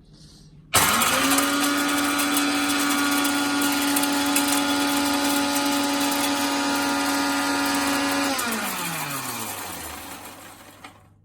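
Electric spice grinder coarse-grinding whole spices for a kadha. The motor starts suddenly and runs at a steady pitch with the spices rattling inside for about seven seconds. It is then switched off and spins down, its pitch falling as it fades.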